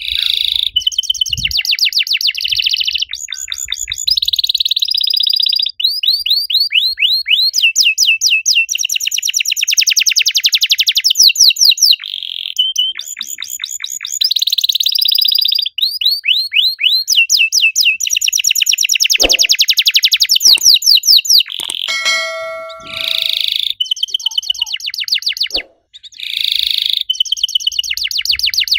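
White domestic canary singing a long song of fast trills and rapid repeated chirps, with only a few short pauses.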